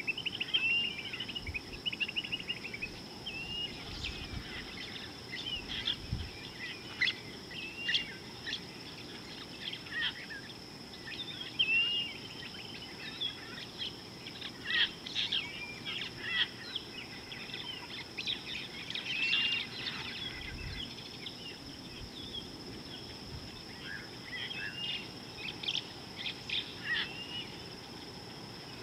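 Wild birds calling: many short chirps and arched whistled notes from several birds, over a steady high-pitched hum.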